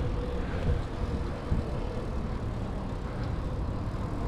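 Steady rush of wind on the microphone mixed with the tyres of a 700c single-speed bicycle rolling over concrete paving, with a soft bump about a second and a half in.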